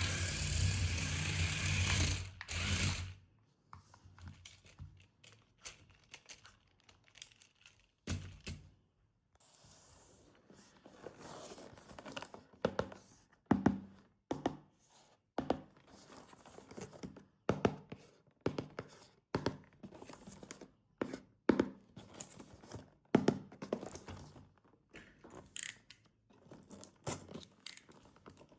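Toy packaging being handled and opened: a continuous rasping, rubbing noise for about the first three seconds, then scattered clicks, knocks and the tearing and crinkling of plastic and cardboard.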